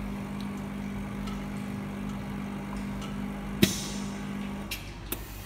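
Steady electrical hum from screen-repair bench equipment, with one sharp, loud click about two-thirds of the way through; the hum cuts off near the end, followed by two lighter clicks.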